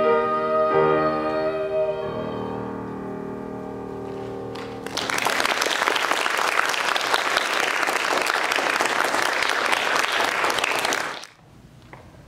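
A girl's last held sung note over piano accompaniment, the final piano chord dying away, then an audience applauding for about six seconds until the sound cuts off abruptly.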